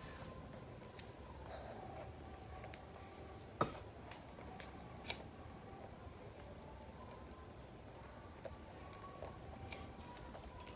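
Faint insect chirping, an even, rapid pulsing that keeps on steadily, with a sharp click about three and a half seconds in and a fainter one a second and a half later.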